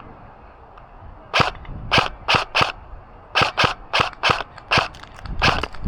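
Airsoft electric gun, a Double Eagle M917G submachine-gun AEG, firing about a dozen single shots in quick, irregular succession. The shots start just over a second in.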